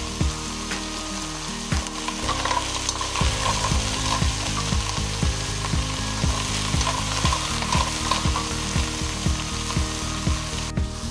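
Sea snails in their shells sizzling in hot oil in a wok while a wooden spatula stirs them with basil and aromatics. A regular low thumping beat of about three a second runs underneath.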